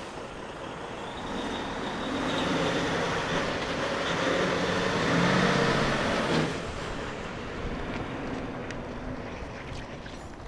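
Diesel semi-truck pulling a box trailer slowly past at close range: engine and tyres grow louder to a peak about five to six seconds in, then drop off sharply as the tractor moves on and the trailer rolls by.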